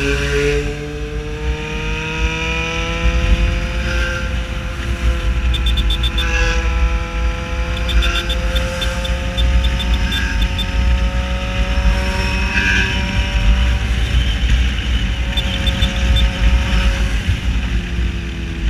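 Yamaha XJ6 Diversion's 600 cc inline-four engine running loud under way, its pitch rising slowly over the first few seconds and then holding steady, easing off slightly near the end.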